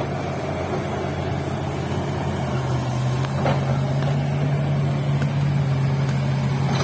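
Diesel engine of a hydraulic excavator running steadily with an even low hum.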